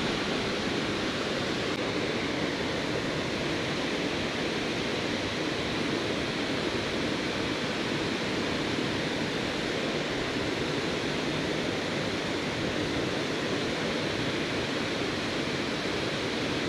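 Waterfall pouring into its plunge pool: a steady, even rush of falling water.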